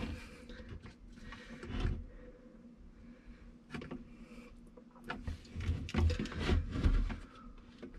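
Handling noises of a plastic fluid jug and a plastic syringe: irregular bumps, scrapes and rustles as the jug is held and tipped and the syringe draws fluid from its neck. The noises bunch about two seconds in and again from about five to seven seconds in.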